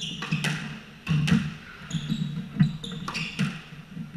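Squash rally: a string of sharp hits as the ball is struck by rackets and smacks off the walls, with shoes squeaking and feet thudding on the hardwood court floor.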